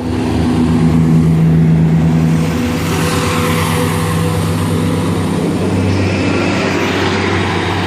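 Diesel multiple unit, a Class 170 Turbostar coupled to a Class 153, pulling away under power with a steady diesel engine drone. The engine note shifts lower about six seconds in.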